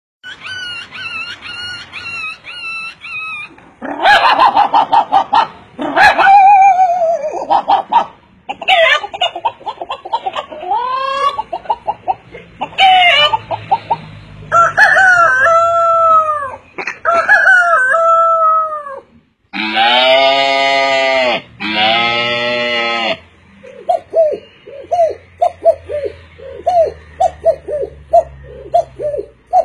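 A man imitating farmyard birds with his voice: a string of varied bird-like calls, two long loud crow-like calls about twenty seconds in, then a quick run of short clucking notes.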